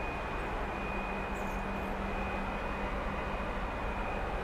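Large Stena Line ferry's engines and machinery running as it moves past: a steady low hum and a thin, steady high whine over a constant rumble.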